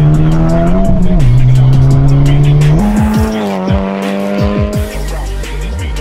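Car engine held at high revs, rising for about a second, dropping sharply as if through a gear change, then jumping back up and easing off slowly, over electronic music with a steady beat.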